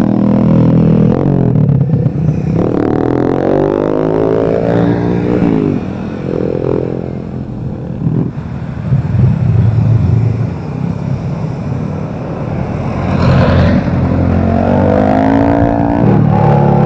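Motorcycles passing one after another, engines revving hard, their pitch rising and falling as they accelerate and ease off.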